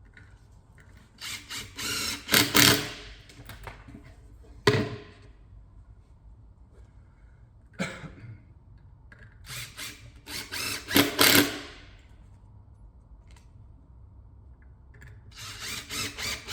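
A power driver sinking 30mm Pozidriv screws into pre-drilled holes in a racking shelf, in three runs of a second or two each. A couple of sharp knocks fall between the runs.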